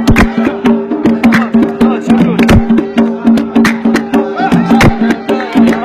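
Traditional Yemeni dan music: sustained drone tones under a steady beat of sharp percussive strikes, about two to three a second, with a wavering melody above.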